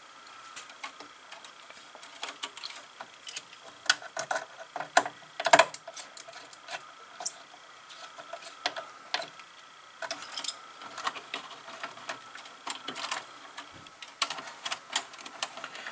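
Irregular small clicks and scrapes of hand wiring: a wire being worked into a relay board's screw terminal and a small screwdriver tightening the terminal screw.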